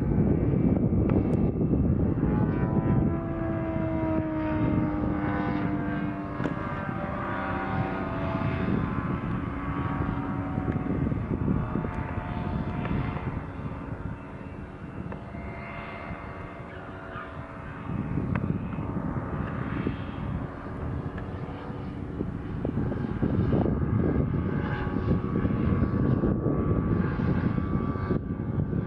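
Radio-controlled Extra 260 aerobatic model plane flying with its ZDZ 180 two-stroke petrol engine and propeller running. The engine note glides down and up through the manoeuvres, drops a little in the middle, and grows louder again after that.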